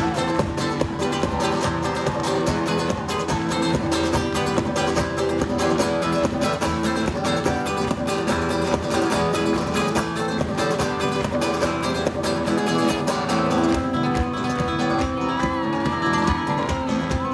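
Two amplified acoustic guitars playing live instrumental music in a flamenco style: fast, driving strummed rhythm under a picked melody, without a break.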